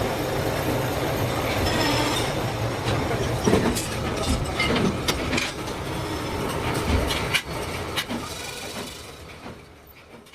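Milling machine running while cutting gear teeth, a steady mechanical noise broken by irregular knocks and clanks. It fades away over the last two seconds or so.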